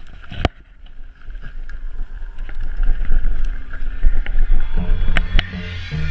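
Mountain bike rolling down a loose gravel trail: tyres crunching over the stones, with sharp rattles and clicks from the bike and wind on the microphone, growing louder as it picks up speed. Music comes in near the end.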